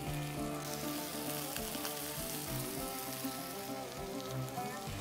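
Tortilla-wrapped burger tacos sizzling as they toast in bacon fat on a grill's fire plate, a steady hiss that is strongest in the first three seconds or so. Background music plays underneath.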